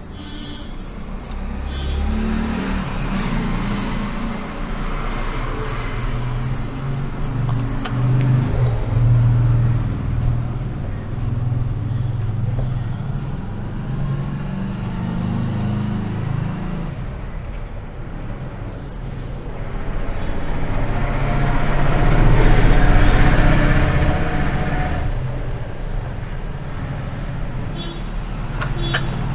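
Motor vehicle engines passing by on a road, a rough low hum that swells twice, loudest about a third of the way in and again about three quarters of the way through.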